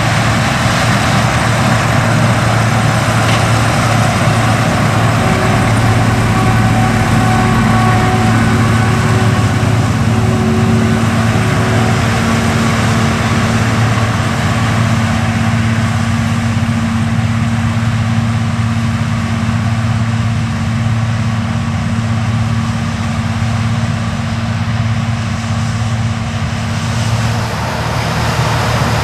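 Large diesel farm machinery working in a corn harvest: a steady, loud engine drone with a held whine above it that fades out near the end.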